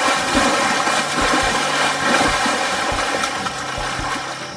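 Water splashing and churning as a spotted hyena drags a zebra out of the shallows, over a steady low hum.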